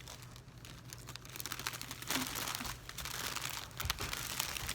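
Plastic bag of spinning fibre crinkling as it is handled and opened, in irregular crackles that get busier about two seconds in.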